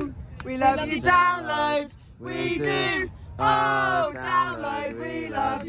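A small group of voices singing together in drawn-out phrases, with short breaks between them.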